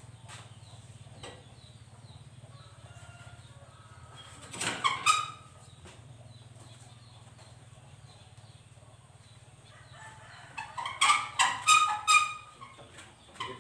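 Chickens calling: one short call about four and a half seconds in, then a louder run of calls from about ten and a half to twelve and a half seconds, over a steady low hum.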